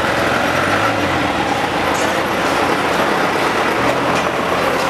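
Steady street and vehicle engine noise, with a jeepney passing close by.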